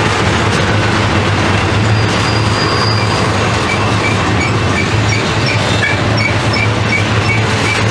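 Double-stack intermodal freight train rolling past on a curve: a steady rumble of wheels on rail with a low hum underneath. From about three seconds in, a regular high-pitched ticking comes in, roughly three times a second.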